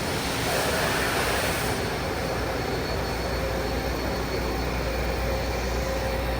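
Steady mechanical running noise with a few faint steady tones, holding an even level throughout.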